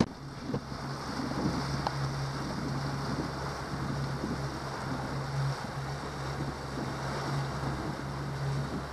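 2019 Yamaha 70 hp outboard motor running steadily at cruising speed, driving the boat through the water with a churning wake. Wind buffets the microphone.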